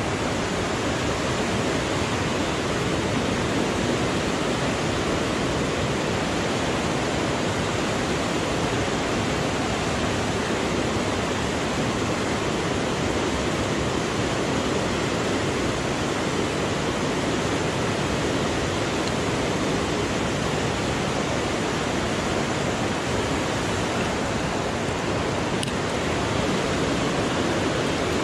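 Fast stream water rushing over rocks in a shallow riffle close to the microphone: a steady, loud, even rush that does not change.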